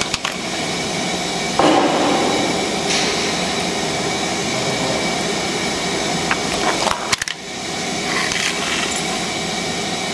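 Crushed hard drive handled with a gloved hand on a steel plate: a few sharp clicks and scrapes of bent metal, over a steady machine noise.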